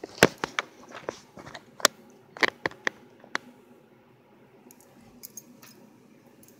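A quick irregular run of close, sharp clicks and knocks, about a dozen in the first three and a half seconds, then a few faint ticks about five seconds in.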